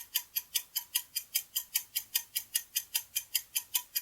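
Countdown timer sound effect: a clock ticking quickly and evenly, about five ticks a second.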